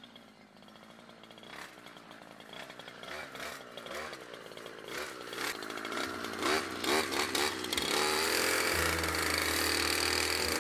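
Two-stroke brush cutter cutting grass and coming closer, growing steadily louder, its engine revving up and down before settling into a steady run near the end.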